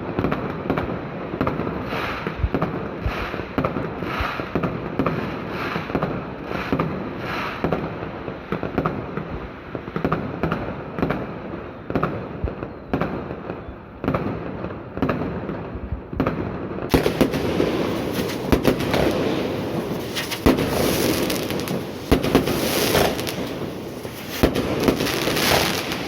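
Fireworks going off continuously, with many sharp bangs over a constant crackle. About two-thirds of the way through, the bursts become brighter and denser, with the loudest bangs in the last part.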